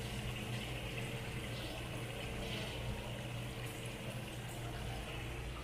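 Water streaming and bubbling in a live crab tank, steady throughout, over a steady low hum.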